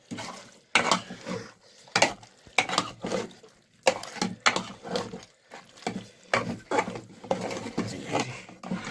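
Clatter of cooking pots and metal utensils: an irregular run of sharp knocks and scrapes.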